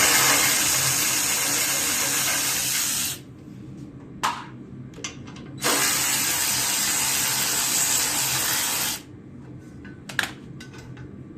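A power tool on a 7/16 socket runs in two bursts of about three seconds each, loosening the bolts that hold the tractor's engine shroud, with a few light knocks in between.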